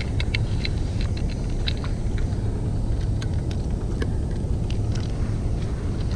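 Light clicks and taps of telescopic fishing rod sections being handled and fitted into a rod case, over a steady low rumble.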